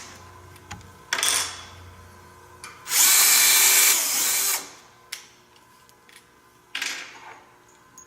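Power drill boring a pilot hole into the end grain of a wooden handrail, run in three short bursts: a brief one about a second in, a longer one of about a second and a half near the middle, and another brief one near the end.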